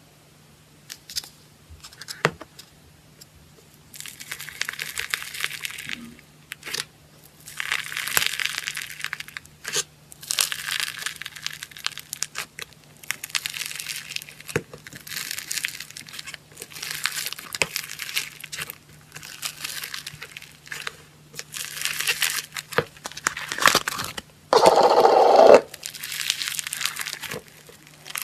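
Foam slime being squeezed and pressed by hand, giving crackling, crinkly bursts about every two seconds, with one louder, deeper squish near the end.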